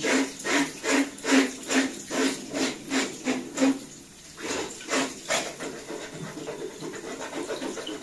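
A small brush scrubbing a wet robot-vacuum mop cloth back and forth, about two to three rasping strokes a second, with a short pause about four seconds in and a couple more strokes after. Tap water runs underneath, heard most plainly once the scrubbing stops near the end.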